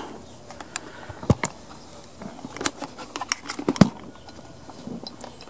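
Camera handling noise as it is mounted on a tripod: a few scattered clicks and knocks, the sharpest about four seconds in, over a low steady background.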